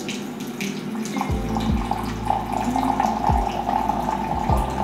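Coffee poured from a moka pot into a ceramic cup: a thin liquid stream trickling steadily into the cup, settling into an even pouring sound about a second in.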